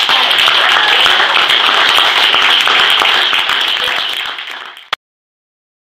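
A room full of people applauding, many hands clapping together; the applause fades out toward the end and stops abruptly.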